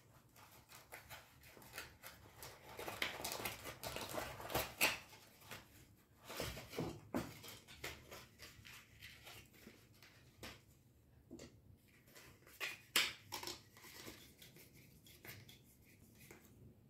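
Hands handling GoPro accessory packaging: plastic and foam inserts scraping and rustling as they are lifted out of a zippered hard-shell carrying case, with scattered small plastic clicks and taps. The handling is busiest a few seconds in and again near the middle, with a sharp pair of clicks later on.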